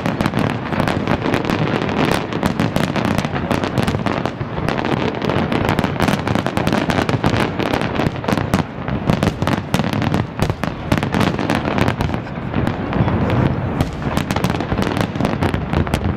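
Fireworks display: many shells bursting and crackling in a dense, unbroken run of bangs, several every second, with no break.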